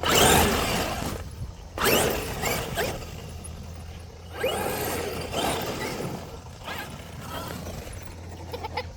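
Traxxas XRT RC monster truck's brushless electric motor whining up in repeated bursts of acceleration, each surge a rising whine with a gritty rush of tyre noise, about four or five surges.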